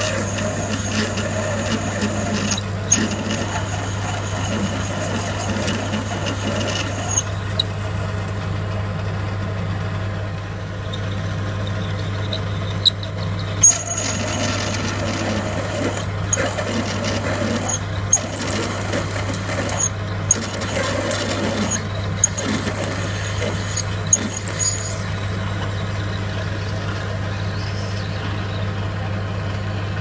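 Metal lathe running while a 14.5 mm twist drill bores into a spinning aluminium bar: a steady motor hum under a high squeal from the drill that comes and goes, with scattered sharp clicks.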